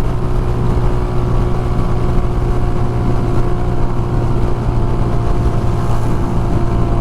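Motorcycle cruising at a steady speed, its engine a constant low drone under heavy wind buffeting on the microphone from a strong crosswind.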